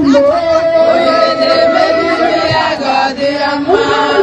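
A group of women chanting and singing together in celebration, holding long notes in unison.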